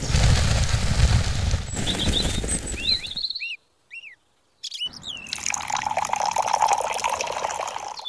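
Dry cement powder poured into a small tin can, a coarse rushing hiss for about three seconds, with birds chirping. After a short silence, water pours and trickles into the can for about three seconds.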